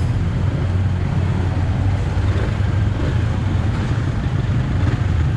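Steady low rumble of a motorcycle underway: engine and road noise mixed with wind on the microphone.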